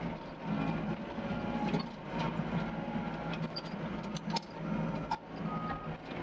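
Doosan DX55 excavator's diesel engine running under digging load, its note swelling and easing every second or so, with scattered sharp knocks and clicks from the work.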